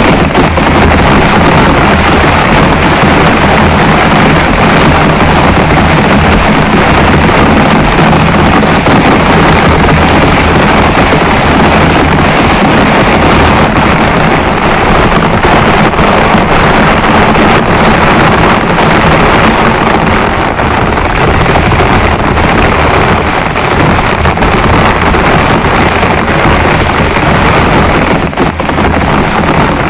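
Heavy rain pouring down as a loud, steady rush, with a low steady hum underneath that fades out past the middle.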